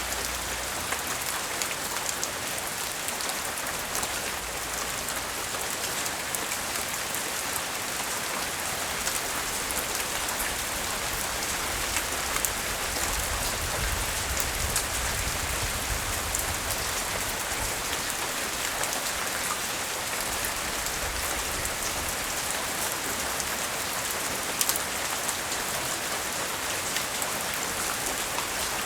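Steady tropical-storm rain falling, with many sharp individual drop ticks on a surface. A low rumble swells briefly around the middle.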